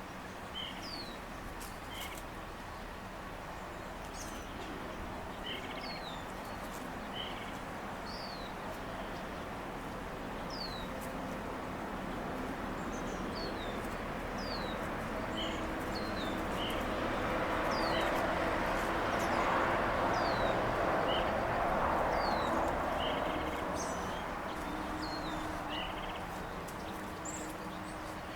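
A small bird calling over and over: short, high, downward-sliding chirps about once a second. This runs over steady outdoor background noise, and a broad rushing sound swells and fades through the middle.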